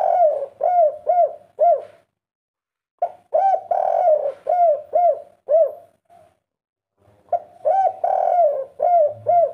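Spotted dove cooing in repeated phrases, each a quick run of short, arched coos around one drawn-out coo. One phrase ends about two seconds in, and new phrases begin about three and about seven seconds in, with short silences between.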